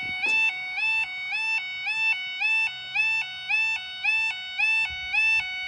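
Level crossing barrier alarm (the British 'yodel' warning) at a manually controlled barrier crossing: an electronic two-tone alarm that alternates steadily between a lower and a higher pitch about twice a second.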